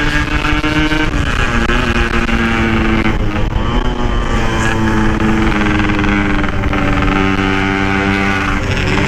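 Yamaha RX-King's two-stroke single-cylinder engine running on the road under way, its note rising and falling as the throttle is opened and eased, dropping in pitch several times.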